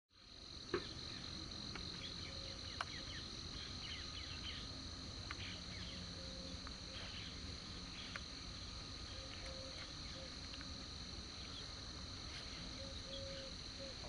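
Steady, high-pitched insect chorus, with faint scattered chirps and two sharp clicks in the first few seconds over a low rumble.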